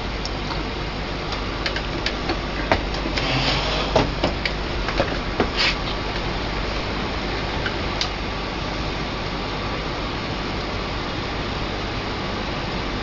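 A steady low hum and hiss, with scattered sharp clicks and taps in the first half and one more click about eight seconds in.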